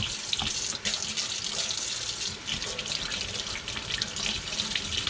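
Kitchen faucet running steadily into a stainless steel sink, the stream splashing over a fish jaw bone and hands, with small irregular scratchy ticks from a brush scrubbing the bone under the water.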